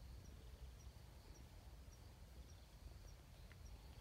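Near silence: a faint, short high chirp repeating evenly about twice a second over a low rumble.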